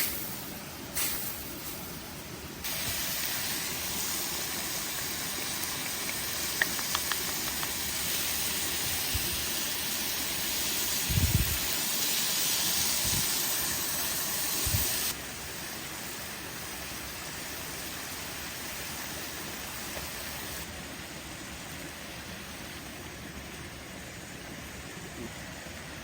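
Food sizzling in hot fat in a pan over a campfire: a steady hiss that changes level abruptly at a few edits and is loudest in the first half, with a few soft low knocks in the middle.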